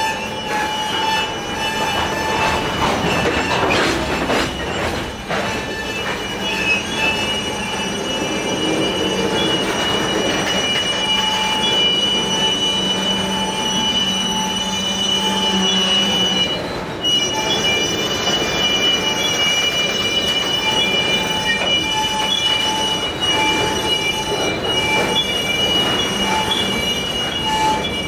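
Covered hopper cars of a freight train rolling past, their wheels squealing against the rails in steady high-pitched tones over the continuous rumble of the train. The squeal breaks off briefly about two-thirds of the way through, then resumes.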